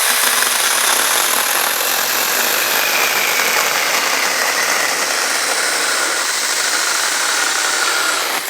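Mini cordless electric chainsaw (4-inch bar, 21 V) cutting through a thick log of hardwood: a loud, steady buzz of chain biting wood, with the motor's whine slowly dropping in pitch under load. It stops suddenly near the end as the cut goes through.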